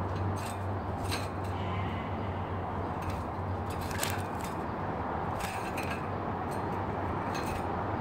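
Canary hopping and fluttering about a wire birdcage: scattered light metallic clicks and clinks as its feet and wings strike the bars and perches, over a steady low hum.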